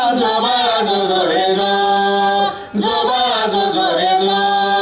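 Singing of a Marathi cradle-song (pāḷaṇā) refrain between verses: two long phrases with drawn-out held notes, with a short break about two and a half seconds in.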